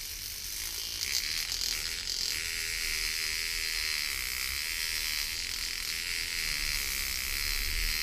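Small electric motor of a beard trimmer with its head removed buzzing steadily while pressed to a screwgate carabiner, shaking it so that the screw gate winds upwards, open. The buzz grows fuller about two seconds in.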